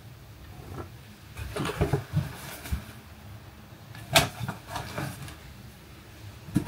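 Children's clothes being rummaged through and lifted out of a storage box, with fabric rustling and a sharp knock about four seconds in.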